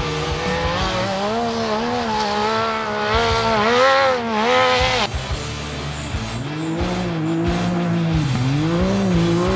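Off-road race car engines revving, their pitch rising and falling with the throttle. The sound changes abruptly about five seconds in to another car revving up and down.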